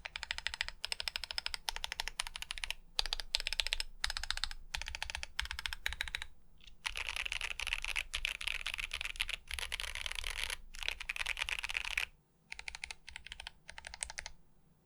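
Typing on a stacked acrylic Alice-layout mechanical keyboard fitted with Akko ASA-profile PBT doubleshot keycaps: rapid keystrokes in runs, with a few short pauses and a longer unbroken flurry in the middle.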